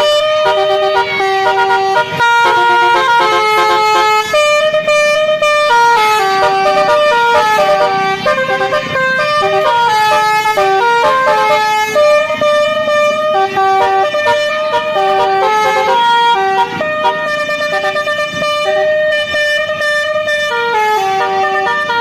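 Basuri telolet horn playing a long, loud tune, its notes stepping in quick succession with no break.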